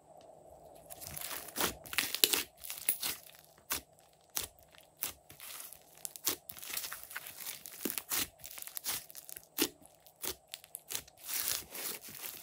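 Hands squishing, poking and stretching a large lump of glossy blue slime, giving a dense run of irregular sticky pops and crackles.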